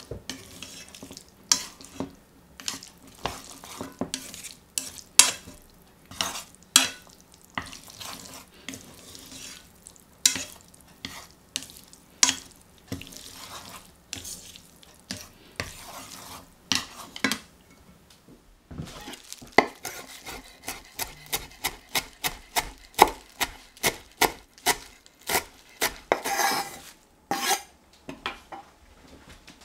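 Wooden chopsticks knocking and scraping against a stainless steel frying pan as spaghetti is tossed, in irregular sharp clicks. In the second half comes a quicker run of clicks with a short metallic ring.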